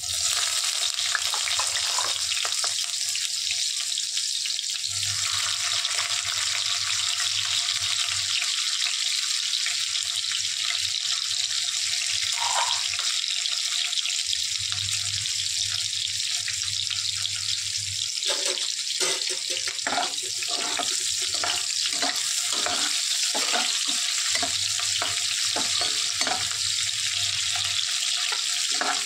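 Sliced onions sizzling in hot oil in a kadai, a steady hiss that starts suddenly as they drop in. About two-thirds of the way through, a ladle stirring and scraping the pan adds a run of clicks.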